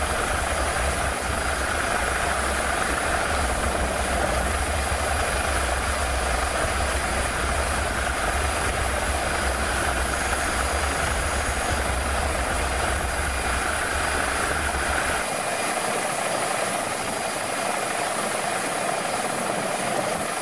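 Steady helicopter engine and rotor noise, heard from aboard the helicopter. The deep low rumble drops away about fifteen seconds in, leaving the higher engine noise.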